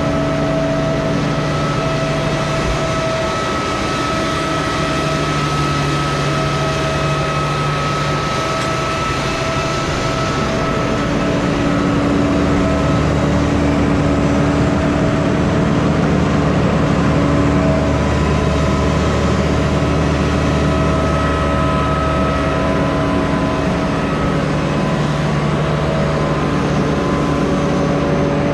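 Case IH tractor engine running steadily while pulling a seed drill sowing maize. It grows louder and deeper about twelve seconds in, then eases slightly near the end.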